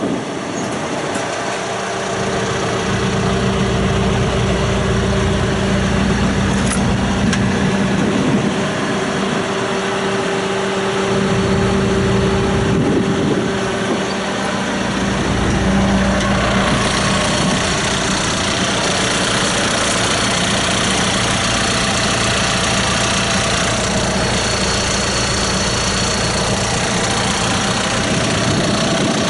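John Deere 310J backhoe's diesel engine running steadily, its sound shifting briefly about halfway through.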